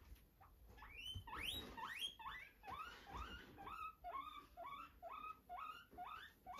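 Guinea pig wheeking: a long run of short, rising squeals, about three a second, beginning about a second in.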